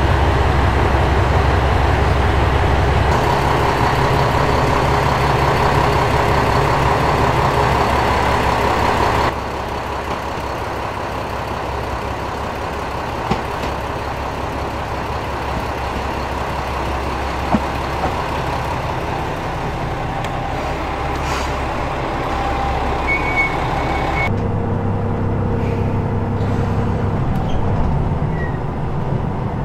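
A JR Shikoku 1000-type diesel railcar idling at a platform: a steady, loud low engine hum. About nine seconds in, the sound cuts to a quieter station scene with a 2000-series diesel express and a few sharp clicks. Near the end it cuts again to a steady diesel engine hum heard inside the 2000-series train's cabin.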